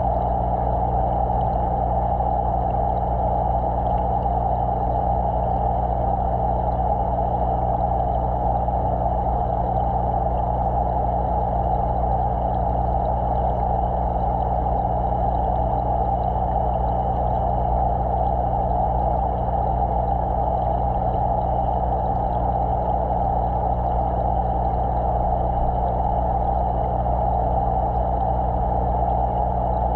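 Steady, unbroken hum of an aquarium pump together with a muffled rush of moving water, heard underwater by a microphone submerged in the tank.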